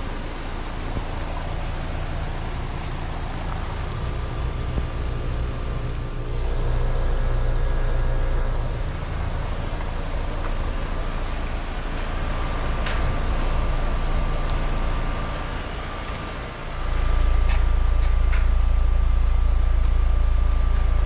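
Rheem Classic Series heat pump outdoor unit running in cooling mode: a steady hum from the compressor and condenser fan, with a thin steady whine above it. About three-quarters of the way through, the low rumble steps up sharply and holds at the louder level.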